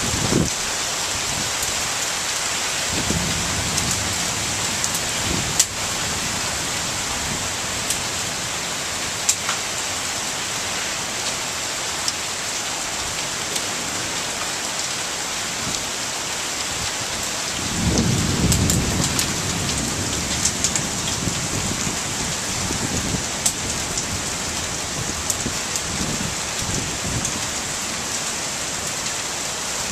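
Heavy rain pouring steadily, with scattered sharp drip taps close by. A low thunder rumble comes about three seconds in, and a louder one swells at about eighteen seconds and lasts a few seconds.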